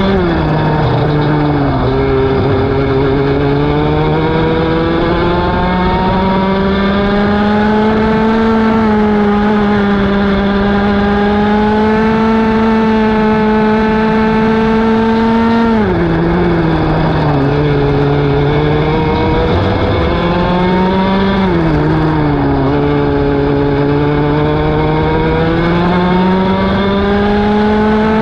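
Racing kart engine heard from on board at full race pace: it winds up through the gears-free rev range down a straight and holds near the top, then the revs fall sharply about halfway in as the driver brakes for a corner, dip twice more and climb again on the exit.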